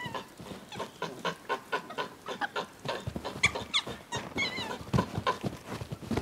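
Snow monkeys giving short squeaky calls over fast crunching of hands and feet on snow, with a cluster of calls about three and a half to four and a half seconds in.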